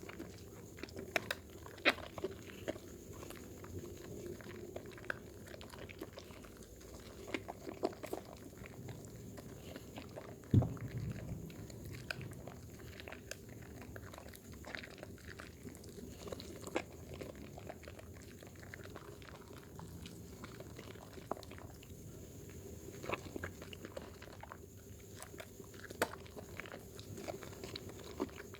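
Hands lathering Dermythol soap with water, making wet squishing sounds with many small clicks and pops, and one louder thump about ten seconds in.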